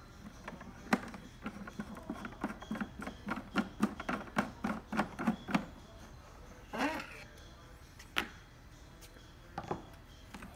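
A screwdriver working a screw out of an instrument's plastic housing: a run of small, evenly spaced clicks, about three to four a second, for several seconds, then a few single knocks as the cover is handled.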